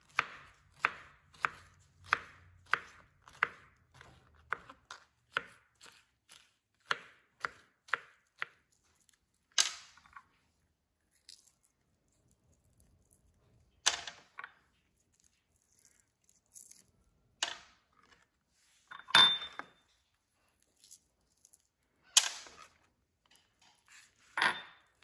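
Kitchen knife chopping pineapple on a plastic cutting board, about two strokes a second for the first eight seconds or so. After that come only scattered single knocks of the knife on the board as dates are cut.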